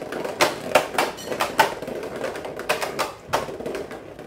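A Beyblade X spinning top skittering around a plastic stadium after a soft launch, clacking against the stadium wall in about eight sharp, irregular clicks.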